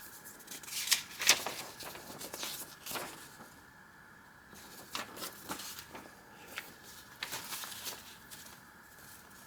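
Paper rustling and crinkling as the pages and paper ephemera of a thick journal are turned and handled: irregular short rustles with quiet gaps, the loudest about a second in.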